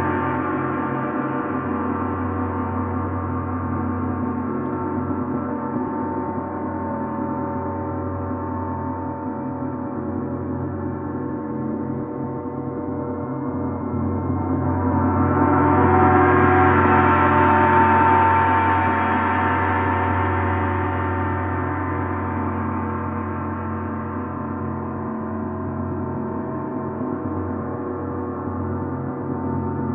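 Large suspended bronze gongs played with mallets, ringing together in a sustained wash of many overtones. The sound swells to a loud, bright peak about halfway through, then eases back down while the ringing carries on.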